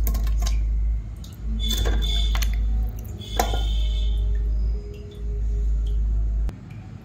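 Pieces of peeled elephant foot yam set down into a metal pressure cooker: a few knocks against the pot with a brief metallic ring, around two and three and a half seconds in. A deep steady rumble with short gaps runs under them and stops shortly before the end.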